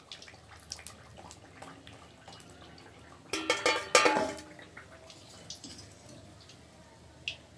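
Kachori frying in hot oil with faint crackling. About three and a half seconds in comes a loud burst of metallic clinks and ringing as a wire spider strainer knocks against the metal cookware while the fried kachori is lifted out. One more click comes near the end.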